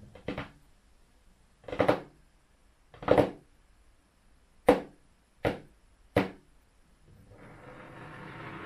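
Fingers tapping on a hard tabletop: about seven separate knocks, unevenly spaced over six seconds, with a pair close together at the start. About seven seconds in, a rising wash of noise begins and grows louder.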